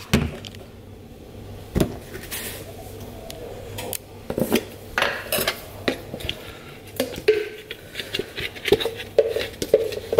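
A camera knocking as it is set down, then a spoon clinking and scraping in a jar as almond butter is scooped out: a heavy thump about two seconds in, then a run of light clicks and scrapes.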